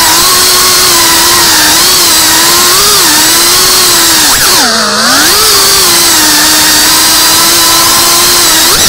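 FPV quadcopter's brushless motors and propellers whining loudly and steadily at high throttle. The pitch dips and climbs back briefly about three seconds in, and more deeply near five seconds, as the throttle is eased off and reopened.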